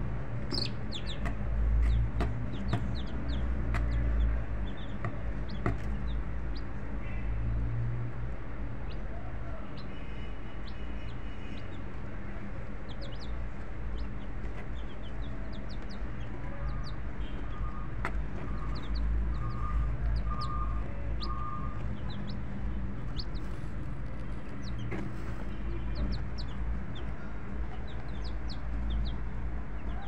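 Poultry flock: chickens clucking and many short high peeps throughout over a steady low hum, with a run of five short even notes a little past the middle.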